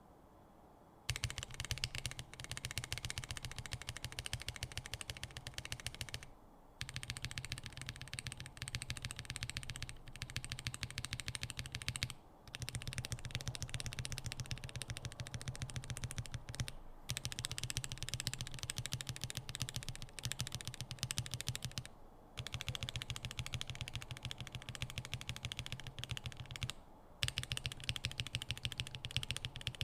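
Typing on a GMMK Pro mechanical keyboard fitted with lubed switches, aluminium plate and no case foam: a fast, dense run of key clicks that starts about a second in and pauses briefly about four times.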